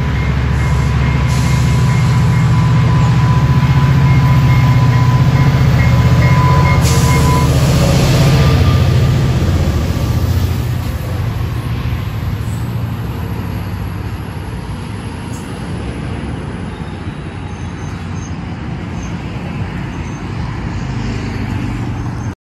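Diesel-locomotive-hauled commuter train passing close by: the locomotive's engine rumble is loudest about six seconds in, with a steady high tone that stops about seven seconds in. The coaches then run past with steady wheel and rail noise that slowly fades before cutting off abruptly at the end.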